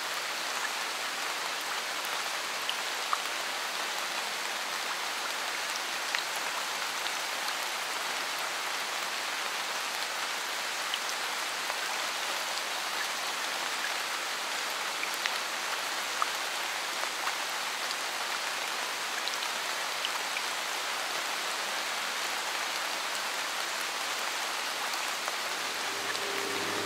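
A steady, even hiss like rain, with scattered faint ticks like drips. Near the end, held tones start to swell in.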